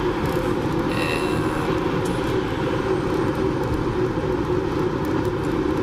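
Steady low rumble and hiss of an engine running while underway, unchanging throughout.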